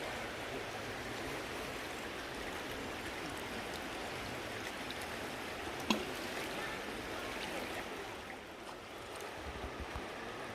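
River water rushing steadily, with a single sharp click about six seconds in.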